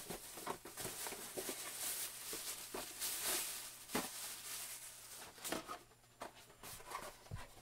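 Plastic shopping bag rustling and crinkling as boxed action figures are pulled out of it, with a few light knocks of the packaging.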